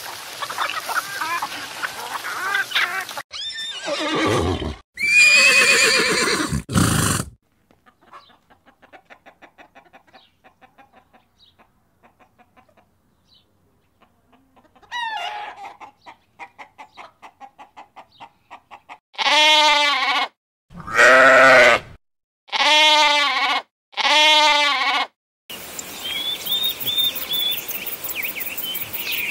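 A string of farm animal calls: a few calls early on, a quiet stretch of faint ticking in the middle, then four loud calls of about a second each in a row, and a different higher, choppy call near the end.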